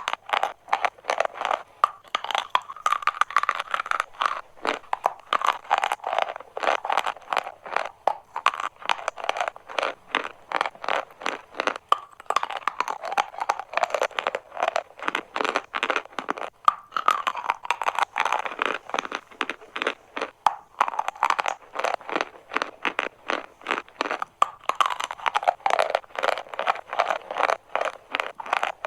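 Dry and wet chalk crunching and crumbling in a dense run of rapid, sharp cracks.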